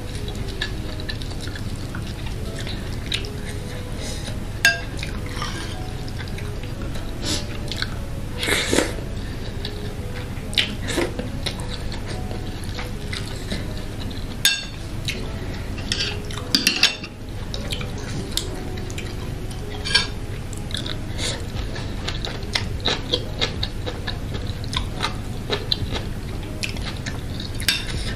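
Chewing instant noodle soup, with a metal spoon and chopsticks clicking sharply against a ceramic bowl every few seconds, over a steady low hum.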